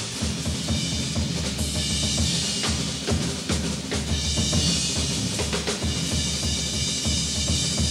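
Solo jazz drum kit: rapid snare and bass drum strokes, with cymbals ringing over parts of it.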